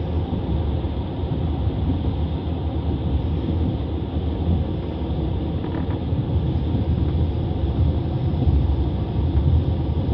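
Passenger train running along the track, a steady rumble of the carriage and its wheels on the rails.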